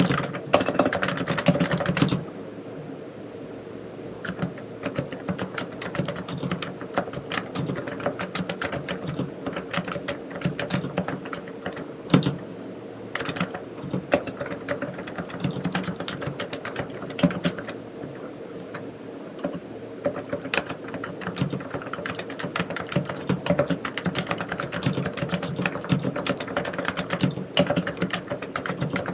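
Typing on a Realforce R3 tenkeyless keyboard with 45 g silenced Topre electro-capacitive switches. A fast run of keystrokes in the first two seconds, then slower, spaced-out keystrokes until about twenty seconds in, when the pace picks up again.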